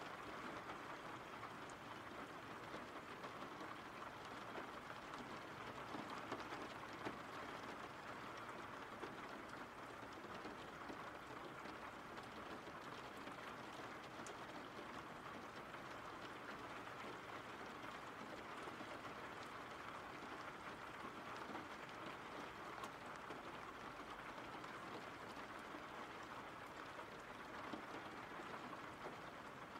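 Steady rain, an even hiss with a few faint ticks scattered through it.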